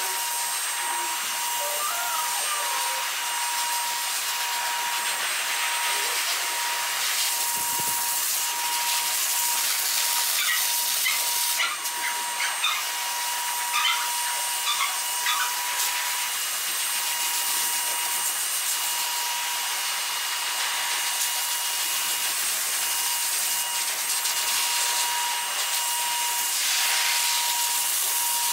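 High-velocity pet dryer blowing air through its hose and nozzle onto a wet dog's coat: a steady airy hiss with a steady whine from the blower motor.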